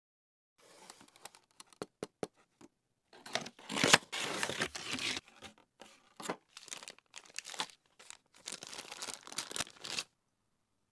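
Thin plastic packaging crinkling and rustling as it is handled, a craft-supply tray and a clear plastic bag, with a few sharp clicks in the first few seconds and the longest, loudest crinkling from about three to five seconds in.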